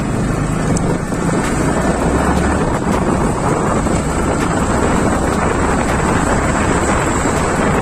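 Steady wind noise rushing over the helmet microphone of a moving motorcycle, loud enough to bury everything else, with the bike's low running rumble underneath. The noise comes from the headphone mic inside the helmet catching a lot of air.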